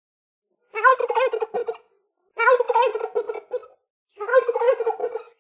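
Turkey gobbling three times in a row. Each gobble is a rapid warbling rattle a little over a second long, and short gaps separate them.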